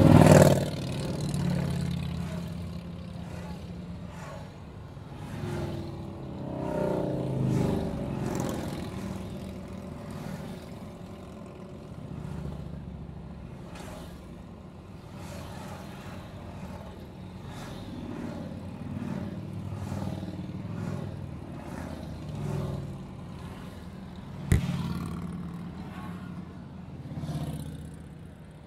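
A procession of motorcycles passing one after another in the oncoming lane, their engines swelling and fading as each goes by, heard from inside a moving car over its road noise. A single sharp click late on.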